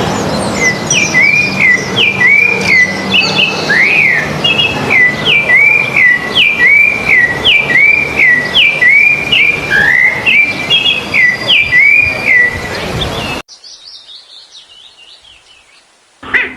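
A songbird repeating a short whistled call over and over, each note dropping in pitch and then holding, over a hissy background. It cuts off suddenly about 13 seconds in, and a fainter, higher run of falling notes follows.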